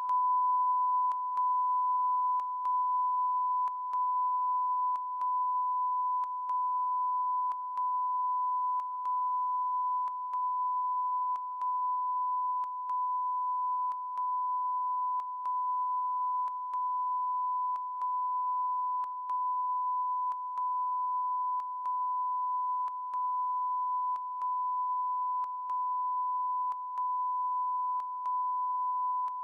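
Broadcast test tone: a continuous single-pitched electronic beep that dips briefly, with a faint click, about every second and a quarter, a sign of a fault in the broadcast feed.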